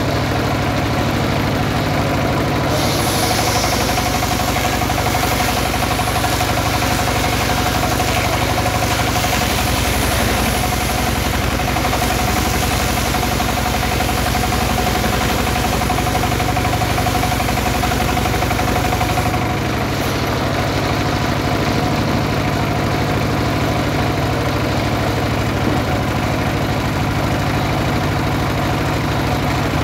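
Horizontal single-cylinder diesel engine running steadily, driving a homemade circular saw bench. From about 3 s in to about 20 s in the blade cuts lengthwise through a teak log, adding a high hiss and a steady whine; then the blade spins free with only the engine sound left.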